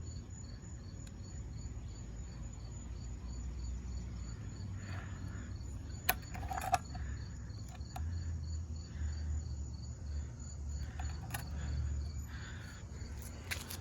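Crickets chirping steadily, about three high chirps a second, over a low rumble of wind or handling noise. A few sharp clicks come about six seconds in, again around eleven seconds, and near the end.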